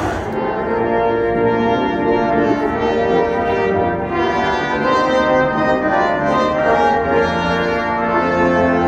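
Brass ensemble playing a slow piece in long held chords, the notes changing about every second.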